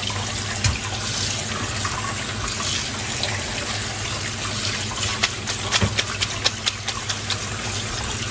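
Kitchen tap running a steady stream of cold water onto boiled egg noodles in a metal colander in a stainless steel sink. A quick run of sharp clicks comes a little past halfway.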